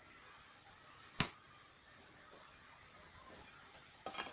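Hard plastic clicks and knocks of a drill's housing shell and motor assembly being handled and fitted together: one sharp click about a second in, then a quick cluster of clicks near the end.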